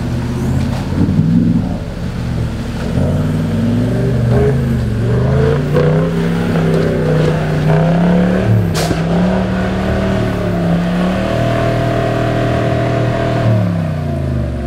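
Toyota LandCruiser 76 series wagon's engine revving hard under load as it drives out of a creek and up a steep, muddy hill. The revs climb over several seconds, hold high, then fall away near the end. There is a single sharp knock about nine seconds in.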